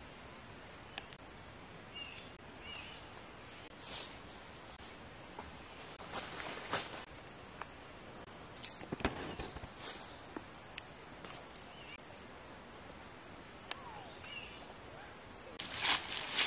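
Steady high-pitched drone of forest insects, with a few faint chirps and scattered twig clicks. Near the end, loud rustling of leaves and footsteps through the undergrowth.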